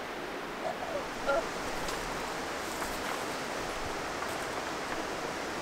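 Steady rushing of a nearby river. Two or three short chirps come about a second in.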